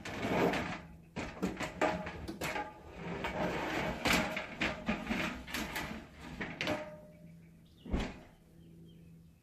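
Irregular knocking, clattering and scraping of hand work on a wall opening where a window air conditioner is being taken out, with one sharp knock near the end. A steady low hum runs underneath and stops near the end.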